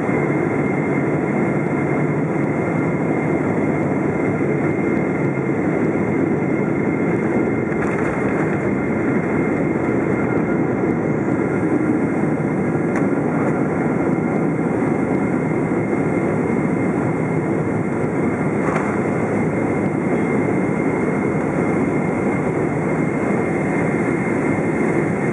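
Steady cabin roar of a Boeing 777-200's GE90 turbofans and rushing airflow, heard by the wing as the airliner comes in to land.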